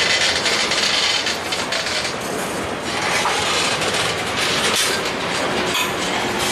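Freight train cars (tank cars, covered hoppers and gondolas) rolling past, steel wheels clicking over rail joints amid a steady rushing rumble.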